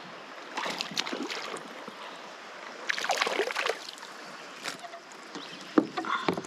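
Kayak paddling: water splashing in three bursts about a second long, a couple of seconds apart, over steady river hiss.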